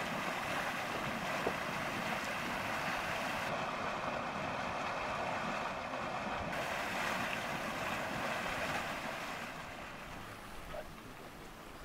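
Steady rushing, hissing noise of a steaming mud pot at a geothermal vent, easing off a little near the end.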